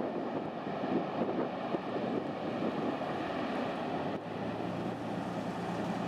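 Jet airliner's engines running, with wind buffeting the microphone. About four seconds in the noise dips briefly, and a steady low hum follows.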